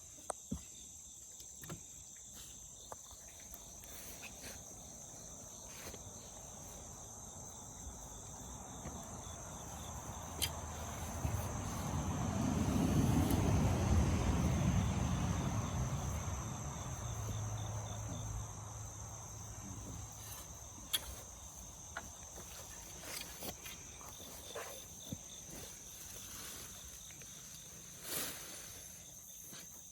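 Steady high-pitched insect chorus, like crickets, with scattered small clicks and knocks. Around the middle a low rushing sound swells up and fades away.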